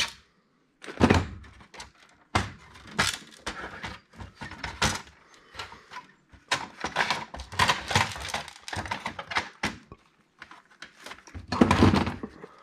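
Sheet-metal chassis and plastic parts of a point-of-sale touchscreen terminal being handled while it is taken apart: irregular knocks, clicks and clatter, with a louder cluster near the end.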